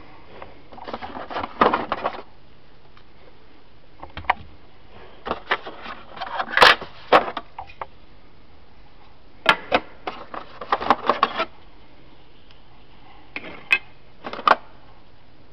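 Plastic tool-case parts and packaging being handled: rustling mixed with sharp clicks and knocks of hard plastic, in four separate bouts with pauses between.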